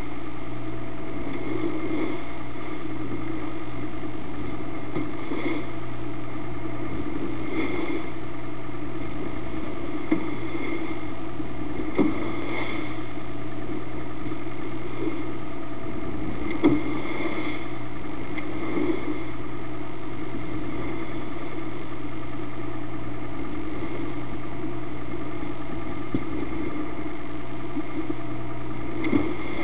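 Motor yacht's engine running with a steady droning hum that swells a little every few seconds, broken by a few short, sharp thumps.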